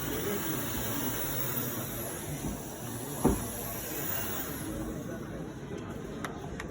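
Dyson V11 cordless stick vacuum running with a steady airy hiss. There is a single knock about three seconds in, and the high part of the hiss fades away about five seconds in.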